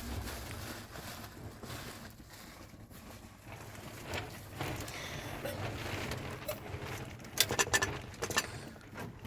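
Low steady background noise, broken about seven seconds in by a quick run of sharp clicks or knocks lasting about a second.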